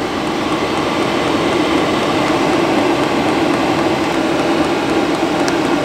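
5 kW Chinese diesel air parking heater running steadily several minutes after start-up: an even rushing hum from its blower and burner that holds at one level.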